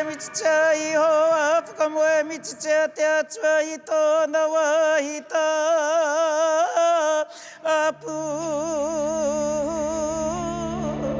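A solo voice chanting, holding long notes with a strong wavering vibrato in short phrases. About eight seconds in, a low steady music drone comes in beneath it.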